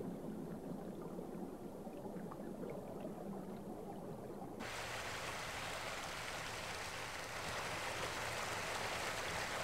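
Stream water running over rocks, steady and without a rhythm: a dull, low rush at first, turning about halfway through into a brighter, fuller hiss of flowing water.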